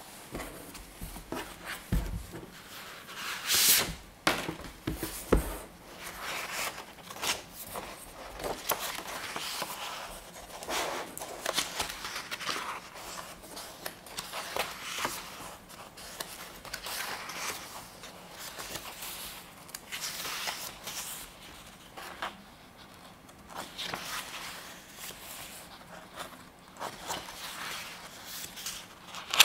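Softcover photobook handled by hand: its plastic PVC jacket comes off and the paper pages are turned, rustling and sliding, with a few soft knocks against the table in the first several seconds.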